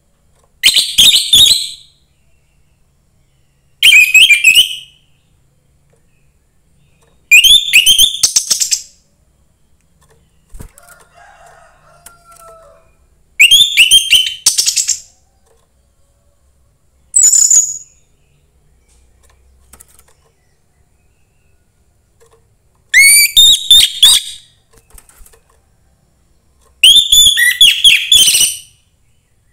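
A young, wild-caught orange-headed thrush singing: seven loud, quick, whistled and warbling phrases, each lasting a second or two, with pauses of a few seconds between them.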